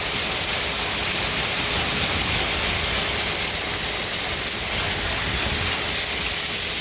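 Combine harvester running during corn harvest, heard from inside the cab as a steady rushing hiss with a faint steady hum.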